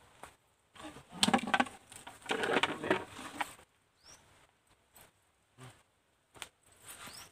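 Footsteps scuffing and crunching on a sandy dirt bank as a person climbs it, loudest in the first half. Two short high rising chirps sound, one in the middle and one near the end.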